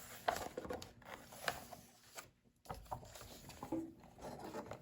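Handling noise from a picture book, its page being turned: soft paper rustles and a few light taps and clicks, with a brief gap of silence a little past halfway.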